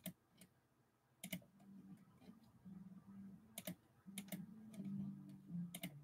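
A few scattered light clicks and taps, some in quick pairs, over a faint low hum that comes and goes from about a second and a half in.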